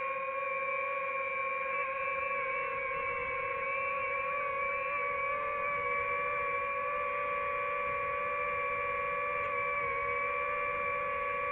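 DJI FPV drone hovering, its propellers giving a steady, high-pitched hum whose pitch wavers slightly as the motors adjust to hold position.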